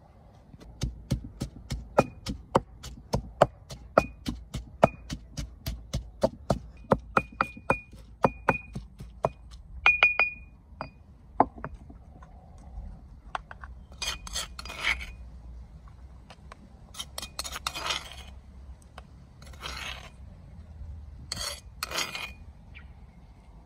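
Eggs being beaten in a bowl with a utensil: a quick, even run of clinks, about three a second, with the bowl ringing, for about ten seconds. It is followed by several longer scraping sounds.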